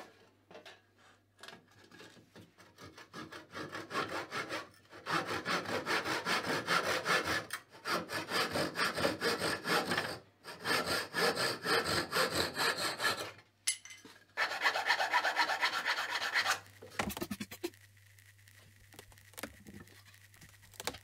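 Double-edged hand saw cutting across a thin wooden molding strip. A few light starting strokes give way to quick, even strokes that stop briefly once. The sawing halts about two-thirds of the way through, after which a short final run of strokes is heard, then only faint handling.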